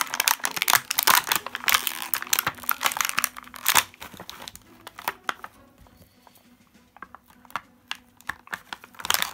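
Thin clear plastic bags crinkling and tearing as toy parts are pulled out of them by hand. The crinkling is loud for the first four seconds, then turns to quieter scattered clicks and rustles while the plastic is cut with scissors, with another burst of crinkling near the end.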